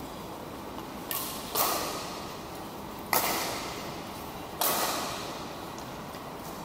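Badminton rackets striking a shuttlecock in a rally: three sharp hits about a second and a half apart, the first just after a softer one, each ringing out in the hall's echo.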